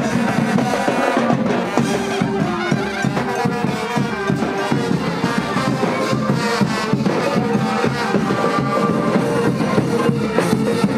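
Music: a wind-instrument melody of held notes over a dense, busy accompaniment, playing steadily without a break.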